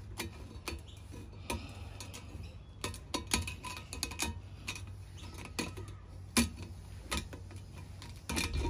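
Thin steel liner gasket clicking and clinking against the metal cylinder liners of a John Deere 2010 diesel as it is worked up off the liner tops by hand. The light metal taps come irregularly, with the sharpest about six and a half seconds in.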